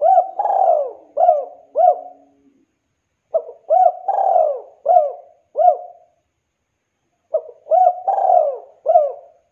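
Spotted dove cooing: three phrases about four seconds apart, each a couple of short coos, one longer drawn-out coo and then one or two short coos again.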